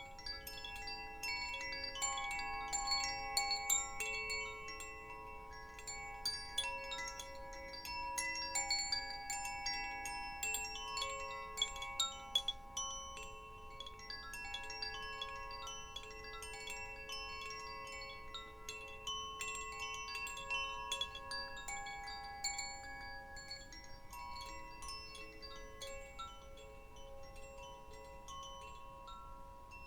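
Wind chimes tinkling, with a dense scatter of small strikes over several overlapping ringing tones. The strikes are busiest in the first half and thin out toward the end.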